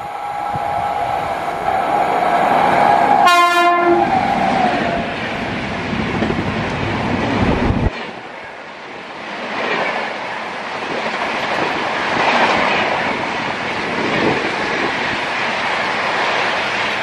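An electric locomotive-hauled express approaching at speed, its horn sounding a long steady note and then a short loud blast about three and a half seconds in. About eight seconds in the sound cuts to the steady rushing and wheel clatter of a train of LHB coaches passing at about 130 km/h.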